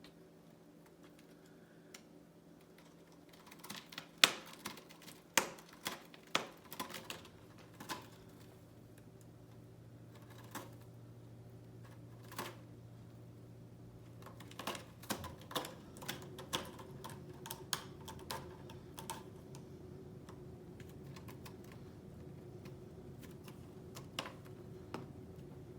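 Irregular sharp clicks and taps in two clusters, over a steady low hum.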